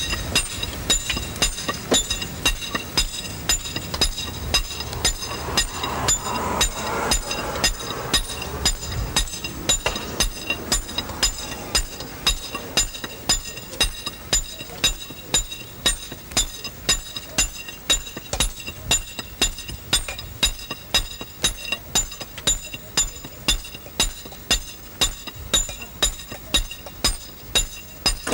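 Hand hammers striking stones in a steady rhythm, about two blows a second, each blow a sharp crack with a bright metallic ring.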